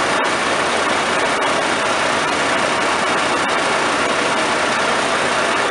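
New Holland CR combine's engine running steadily at idle while the hydraulic reverser ratchets the rotor backwards to unplug it.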